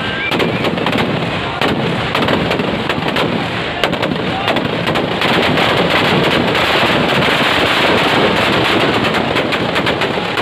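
Firecrackers packed inside a burning Ravana effigy going off in a rapid, unbroken string of bangs and crackles. About halfway through they thicken into a dense, continuous crackle.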